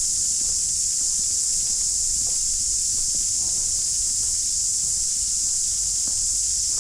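Steady high-pitched drone of insects in summer, unbroken, with faint footsteps on a path underneath.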